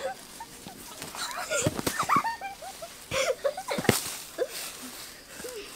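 Boys' short cries and calls as they swing on forest vines, with a few sharp thuds as they drop to the ground, the loudest about two and four seconds in.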